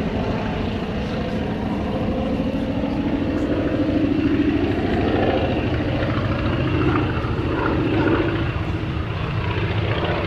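Antonov An-2 biplane's nine-cylinder radial engine and propeller droning steadily in flight overhead, the pitch drifting up and down slightly as it banks.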